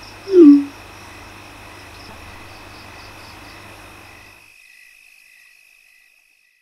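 A short falling "bloop" of a phone's message notification sound about half a second in, over a steady chorus of night crickets that fades out after about four seconds.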